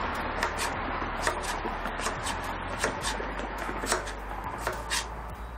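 Chef's knife cutting through fresh ginger onto a plastic cutting board: irregular light taps and clicks, about one or two a second, over a steady low background hum.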